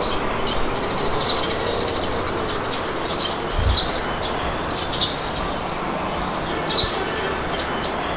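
Steady wind blowing, with birds chirping in short high calls every second or so over it.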